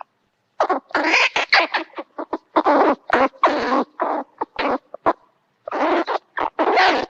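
Cartoon sound effect: a rapid, irregular string of short animal-like yelps and chatters with brief pauses.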